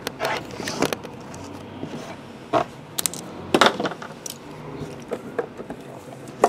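Metal trading-card tins being handled and moved on a table: a string of sharp clicks, knocks and scrapes of tin against tin, the loudest about three and a half seconds in.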